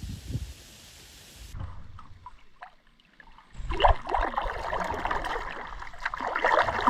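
Water splashing and trickling around a kayak being paddled, loudest from about halfway through, with a dense crackle of drips and splashes. Low wind rumble on the microphone at the start.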